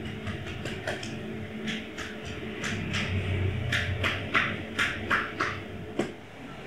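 Massage therapist's hands working on the body: a dozen or so short, uneven rubbing and patting strokes, thickest in the middle, with a sharp tap about six seconds in, over a steady low hum.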